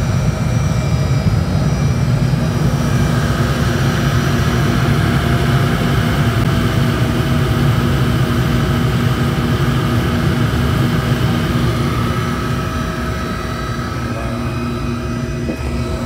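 Forced-air burner firing a tilting hearth furnace: a steady combustion roar with a blower hum, easing slightly near the end. The builder judges the burner starved of fuel and wanting a bigger nozzle.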